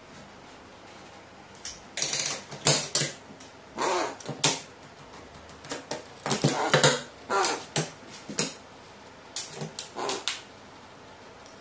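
A crow's beak and claws tapping and clicking irregularly on a metal sheet and on wooden chopsticks, with a few short, throaty calls from the crow in between.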